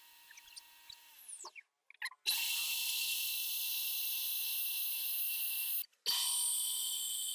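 Homemade lathe knurling a spinning metal rod: the two knurling wheels pressing into the work give a steady, high-pitched hissing scrape. It starts sharply about two seconds in, after a brief falling whine, and breaks off for a moment near six seconds.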